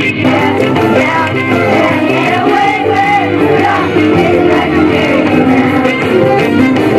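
Children's choir singing an upbeat song with instrumental accompaniment.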